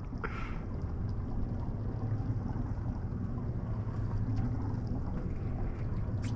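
Steady low rumble and hiss of wind and water around a small boat drifting on open sea, with a single faint click near the end.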